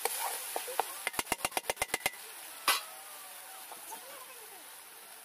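Metal spatula clinking and scraping against an iron kadhai as frying masala is stirred: a quick run of about ten clicks in a second, then one louder knock.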